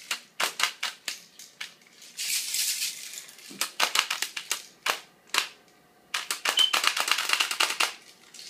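Airsoft gun firing in several rapid bursts of sharp clicking shots, with short pauses between bursts.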